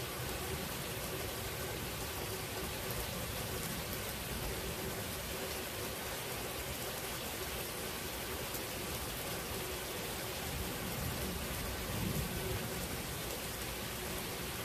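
Steady rain falling in a thunderstorm, an even hiss with a brief low swell near the end.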